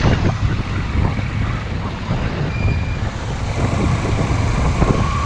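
Motorcycle riding: the bike's engine runs under wind noise buffeting the GoPro action-camera microphone. A faint steady whine comes in near the end.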